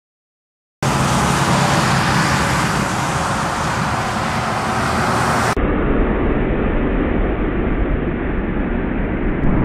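Silence for under a second, then steady highway traffic noise as a tractor-trailer and cars pass. About halfway through the sound turns abruptly duller.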